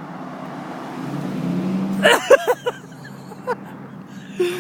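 A car engine running with a steady low hum that swells about a second in. Short bursts of voice and a few clicks come about two seconds in.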